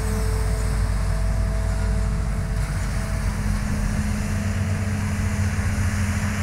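Hitachi hydraulic excavator's diesel engine running steadily under load as the machine digs and lifts a full bucket of soil, with a low drone and a faint whine that gives way to a lower steady tone about halfway through.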